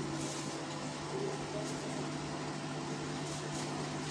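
Steady low hum with a faint even hiss and a few faint, brief scratchy sounds.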